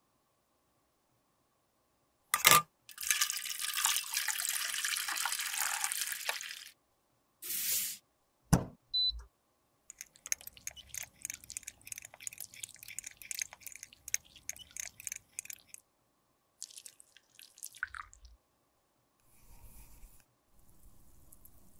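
A sharp click, then a steady hiss for about four seconds and two short knocks. After that a thin metal stirring rod clinks and scrapes rapidly against a small glass beaker of liquid for about six seconds, followed by scattered light taps.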